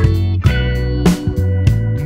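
Background music: guitar and bass over a steady drum beat of about two hits a second.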